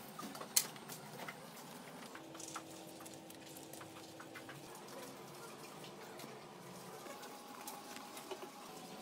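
Quiet indoor room tone with scattered small clicks and rustles from handling, the sharpest click about half a second in, and a faint steady hum for a couple of seconds in the middle.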